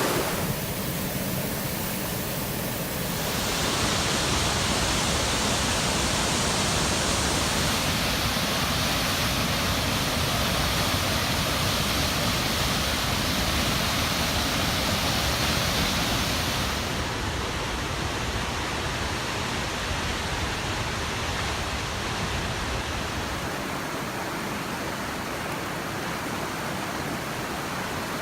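McKenzie River whitewater and waterfalls rushing steadily, a dense even noise whose tone shifts abruptly a few times.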